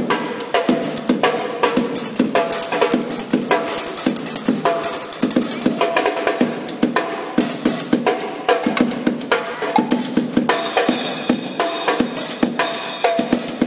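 Drum kit mounted on a bicycle, played live in a fast, busy beat of rapid drum and cymbal hits.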